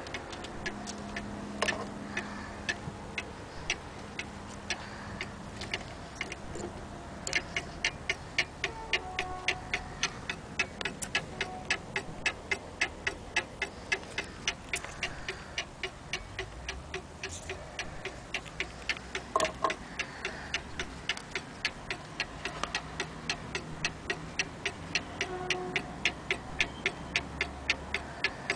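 Antique Black Forest cuckoo clock's movement ticking: a quick, even tick-tock that grows clearer about seven seconds in.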